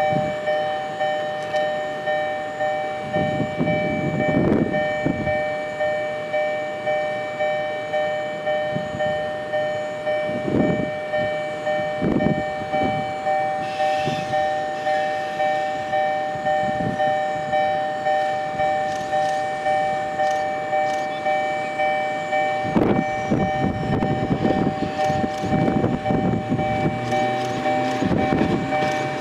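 Railway level-crossing warning bell ringing steadily, a repeating two-tone clang at a little over one stroke a second. Low rumbling swells rise under it a few times, loudest in the last several seconds.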